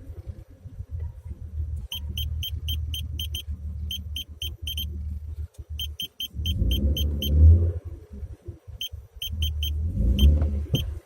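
BMW E36 drivetrain running in gear with a steady low drone that swells twice. The owner puts the hum down to the gearbox input shaft rather than the differential. Groups of short, rapid high beeps sound over it.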